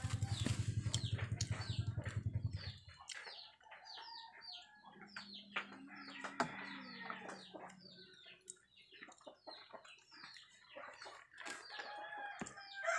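Chickens calling with many short, quick, falling chirps. A low hum with fast pulses runs under them and cuts off about three seconds in. A rooster starts to crow right at the end.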